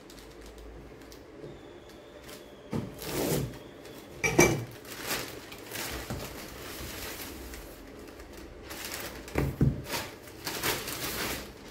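Plastic courier mailer being cut open with a knife and handled: irregular short bursts of crinkling and rustling, busiest near the end as the bag is pulled off a cardboard box.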